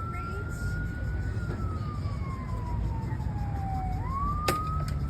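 Siren wailing: one slow rise and fall in pitch, dropping over about three seconds and sweeping back up near the end, over a steady low rumble, with one sharp click near the end.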